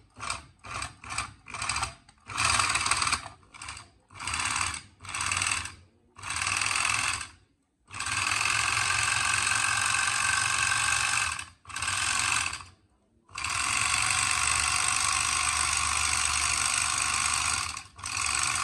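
Restored three-needle industrial sewing machine running in stop-start bursts: several short runs of well under a second, then longer runs of a few seconds each, the longest about four and a half seconds.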